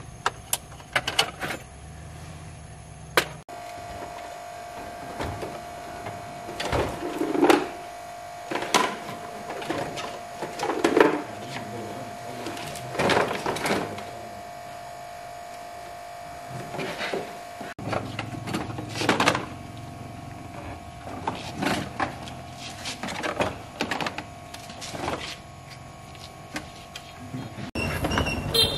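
Screwdriver work and plastic dashboard trim panels in a truck cab, clicking, knocking and scraping in irregular bursts as the dashboard is unscrewed and pulled apart. A faint steady hum sits under it for a stretch from a few seconds in until about two-thirds of the way through.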